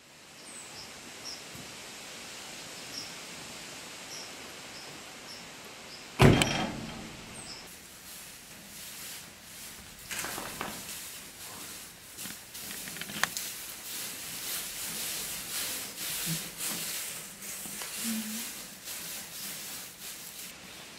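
Sheep moving and feeding in straw bedding: a dry, irregular rustling and crackling of straw. About six seconds in, a single loud bang that rings on for a moment is the loudest sound.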